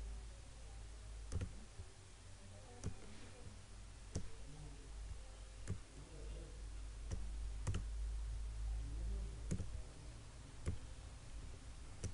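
Computer mouse button clicking: about eight single clicks, irregularly spaced, over a low steady hum.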